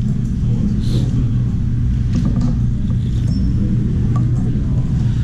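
Steady low rumble of room noise, with a few faint clinks of a ceramic spoon and chopsticks against a bowl of noodles.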